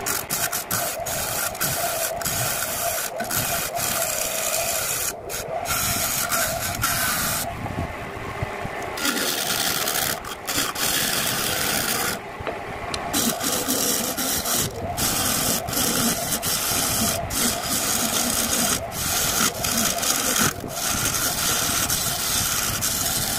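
Wood lathe running with a hand-held scraping tool cutting the rim of a spinning glued-up bowl blank of sonokeling and petai jawa wood, a steady rasping hiss over the lathe's hum. The cutting breaks off for a moment several times, with longer pauses about a third of the way in and about halfway.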